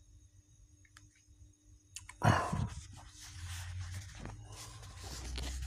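Paper pages of a comic book being turned and handled: a sudden flap of paper a little over two seconds in, then a few seconds of rustling.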